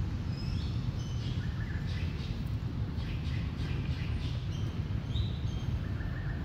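Wild birds chirping in short high calls scattered throughout, over a steady low rumble.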